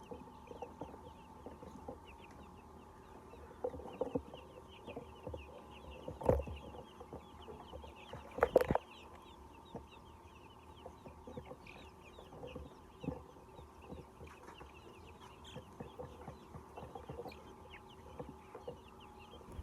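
Chickens clucking, with a steady scatter of faint high chirps over the top. Two louder, sharp sounds stand out about six and eight and a half seconds in.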